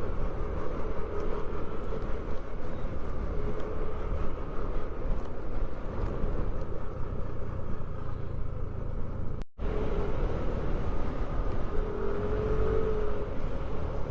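Motorcycle riding at steady speed, with a steady engine drone under constant road and wind noise. The sound cuts out for an instant about two-thirds of the way through.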